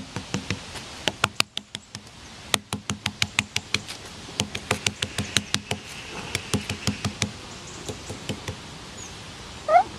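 A hand tapping and knocking on a garden table top, in quick runs of about four to five knocks a second that thin out in the second half. Near the end there is a brief rising squeak.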